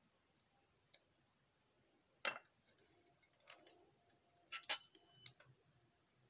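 A kitchen knife slicing a roti into thin strips on a stone countertop, its blade striking the stone in scattered sharp clicks, about five in all. The loudest comes a little after the middle and carries a brief metallic ring.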